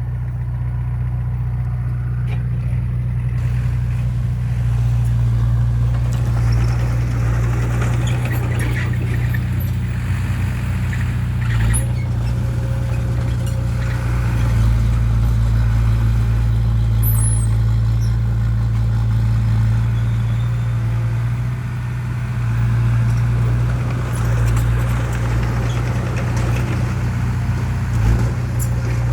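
Heavy diesel engine running steadily with a low, even drone, with a few brief knocks.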